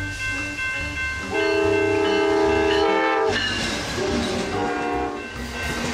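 Passenger train passing close by and sounding its horn: a long blast from about a second in, then a shorter, quieter one, over the low rumble of the train on the rails.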